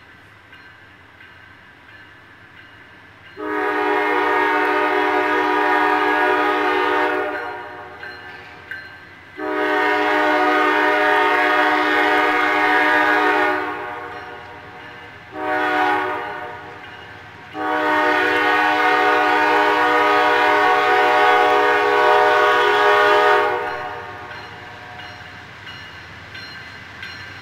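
Locomotive horn sounding the grade-crossing signal: two long blasts, a short one and a final long one, a chord of several tones. A low steady train rumble runs beneath and between the blasts.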